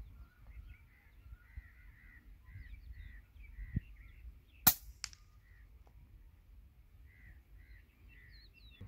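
A P-35 PCP air rifle fires once, a single sharp crack a little over four and a half seconds in, with a fainter click half a second later. Birds call in the background throughout, short notes repeated about twice a second.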